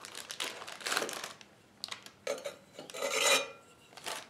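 Flat blade scraping soft lard out of its paper-lined carton into a saucepan: rubbing and scraping with paper rustling, in two spells, the second longer and louder.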